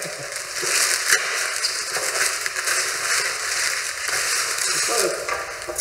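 White plastic courier mailer bag crinkling and crackling as it is squeezed, turned and pulled at to get it open.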